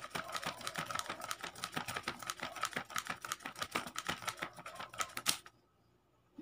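A wad of paper banknotes flapped rapidly back and forth as a hand fan: a fast run of papery flaps and rustles that stops abruptly about five seconds in.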